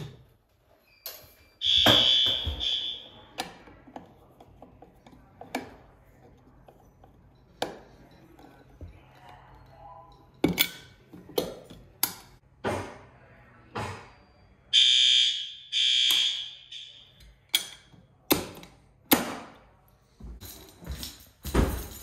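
System Sensor L-series fire alarm horns sounding in short blasts: one blast about two seconds in, then two more near the middle. Sharp clicks and knocks from handling the devices are scattered between the blasts.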